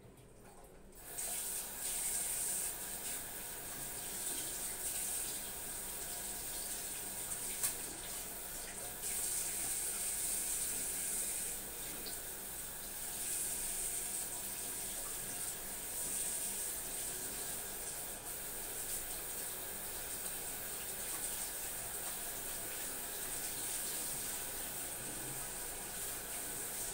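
Bathroom sink tap turned on about a second in, water then running steadily into the basin and over a wet cat as it is rinsed. One brief clack about eight seconds in.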